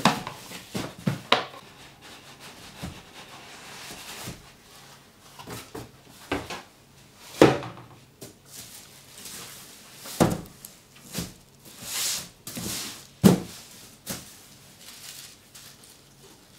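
Cardboard boxes being handled: flaps and sides scraping and rubbing, with several sharp knocks as the boxes are moved and set down, and the crinkle of a box's clear plastic wrapping.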